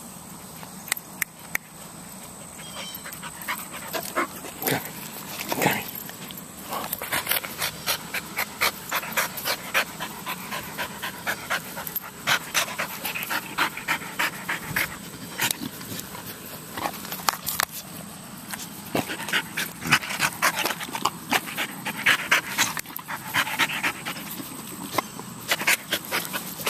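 A dog panting rapidly close up, with many sharp clicks mixed in.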